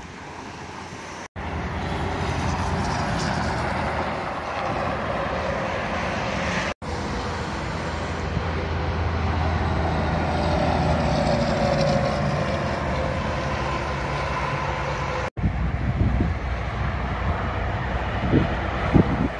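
Tractor-trailer trucks passing on a highway: a steady roar of tyres and diesel engines, with a falling pitch as one goes by. The sound comes in several short stretches that cut abruptly into one another, with a few low thumps near the end.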